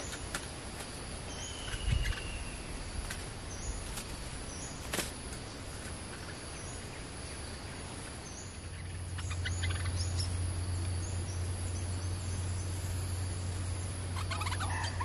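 Forest ambience: a steady high insect drone with scattered short bird chirps, a falling whistle and a soft thump about two seconds in. From about halfway a low steady hum sets in, and near the end a bird starts a burst of chattering calls.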